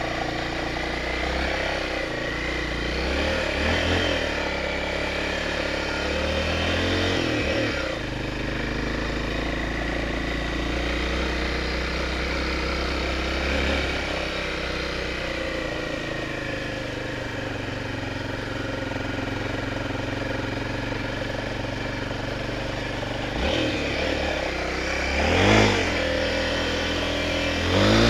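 Honda XR 250 Tornado's single-cylinder four-stroke engine running as the motorcycle rides slowly through mud, its note rising and falling with the throttle, with two sharper revs near the end.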